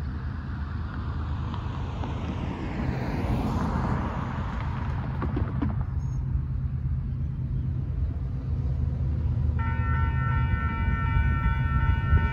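Low, steady rumble of an approaching diesel freight train, with a car passing a few seconds in. Nearly ten seconds in, the grade-crossing warning bell starts ringing with a steady, even pulse as the crossing activates.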